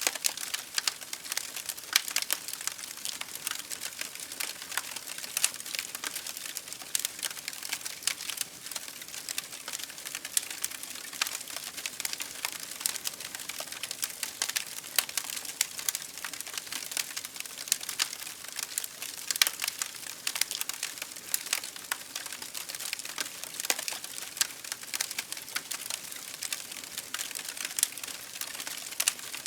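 Campfire burning, wood crackling and popping in a dense run of sharp snaps over a soft hiss.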